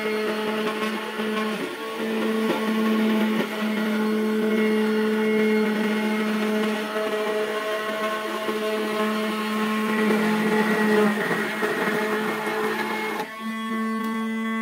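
A 775 DC motor spinning a milling bit up through a homemade PVC milling table, whining steadily while a thin sheet is fed against it to cut out a curved shape, with a rough cutting noise over the hum. Near the end the cutting noise stops and the motor's tone turns steadier.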